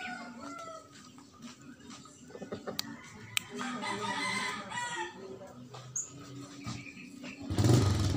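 Japanese Shamo rooster crowing once, a call of about a second and a half starting about three and a half seconds in. Near the end a loud low rumble sets in.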